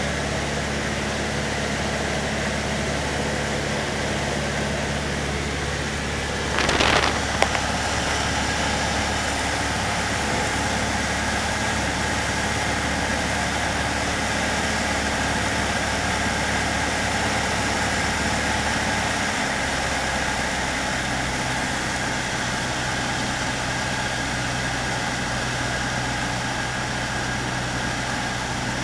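Cessna 152's four-cylinder Lycoming engine and propeller running steadily, heard inside the cabin on the landing approach. There is a short loud burst of noise about seven seconds in, and the engine note changes about two-thirds through.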